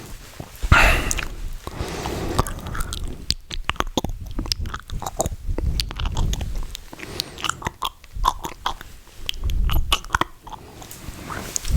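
Close-miked ASMR mouth sounds: wet clicks, smacks and tongue pops in quick, irregular succession, with a couple of longer, louder wet bursts.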